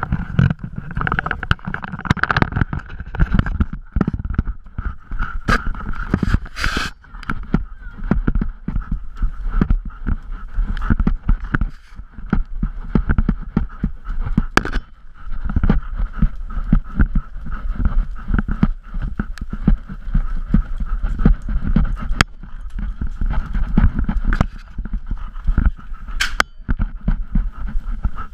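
Handling noise from a GoPro carried by a golden retriever: a constant run of irregular knocks, bumps and rubbing as the camera jostles against the dog, over a low rumble.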